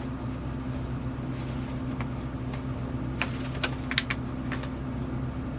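A few light clicks and rustles of parts and packaging being handled, over a steady low hum.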